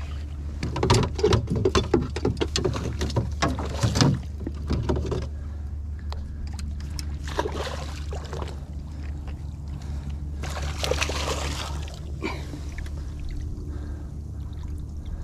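A hooked redfish splashing and thrashing at the surface beside a small skiff. There is a rapid run of splashes and knocks over the first five seconds, then a few scattered splashes, over a steady low hum.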